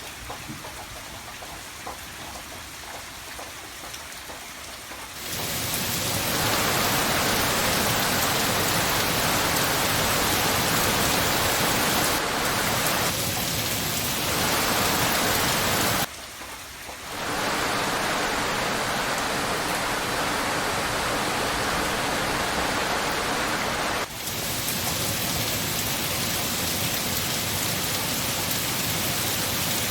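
Steady rain falling, a dense even hiss. It jumps abruptly in loudness several times: quieter for the first five seconds, louder after, a brief quieter dip around the middle, and a little softer again near the end.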